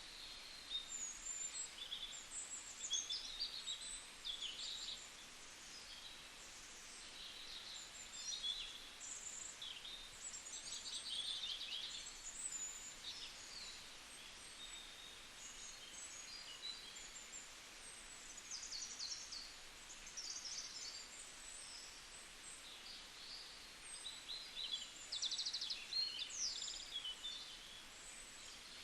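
Small birds chirping and twittering, many short calls and quick trills overlapping throughout, over a faint steady hiss.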